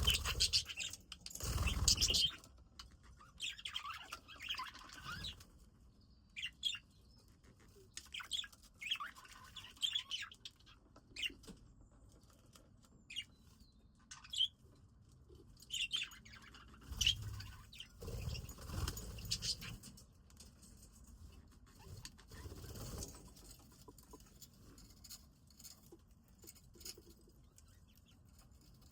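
Budgies chirping in short, scattered calls, with a few bursts of wing flapping.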